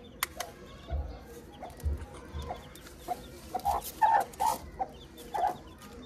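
Hen clucking in short repeated calls, mostly in the second half, with a sharp tap near the start as an egg is knocked against a brick wall.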